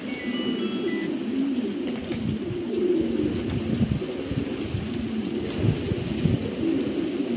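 A flock of pigeons cooing, many low coos overlapping without a break, over a steady hiss. A few short high chirps come in the first second.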